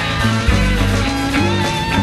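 Rock music recording: electric guitar over a low line stepping between notes, with sustained tones above.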